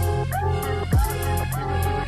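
Electronic dance-style background music with a heavy beat: ticking hi-hats, synth notes that slide in pitch, and a deep booming kick that drops in pitch about a second in.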